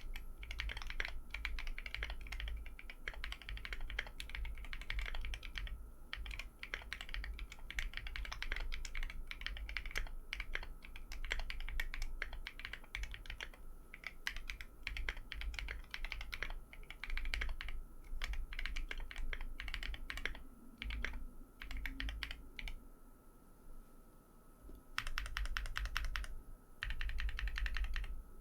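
Typing on a 60% mechanical keyboard with lubed Tecsee Coral tactile switches and MT3-profile double-shot ABS keycaps: a steady stream of keystrokes. It thins out to a few scattered presses about three-quarters through, then ends in two fast runs of rapid keypresses.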